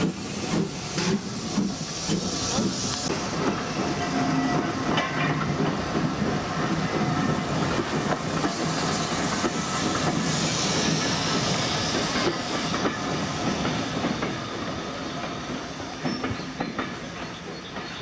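Steam train hauled by Ivatt Class 2 tank locomotive 41313 rolling past and drawing away, with the coach wheels clicking over the rail joints and steam hissing. The sound fades a little near the end.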